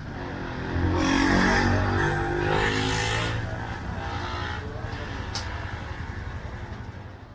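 A motor vehicle's engine passing close by, with the pitch rising and falling. It gets loud about a second in and fades toward the end.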